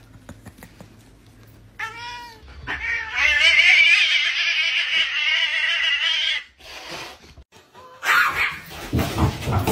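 Domestic cat yowling: a short meow about two seconds in, then one long, loud, wavering yowl lasting about three and a half seconds. Near the end there is a burst of rough noise.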